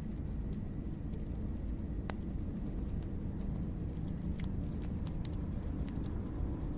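Wood fire crackling: scattered sharp pops and snaps, one sharper snap about two seconds in, over a steady low rumble.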